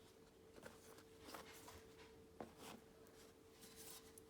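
Near silence: room tone with a faint steady hum and a few soft rustles and a light tap from items being handled.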